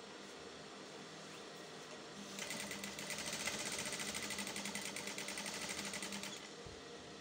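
Electric straight-stitch sewing machine stitching a zipper into a skirt. It starts a couple of seconds in, runs for about four seconds in a rapid, even rattle of stitches, then stops. A faint steady hum comes before and after.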